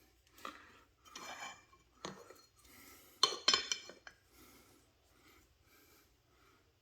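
Metal woodworking positioning squares being handled and set against each other: a few light clinks and a short scrape, then a quick cluster of sharp clinks about three and a half seconds in, the loudest of them.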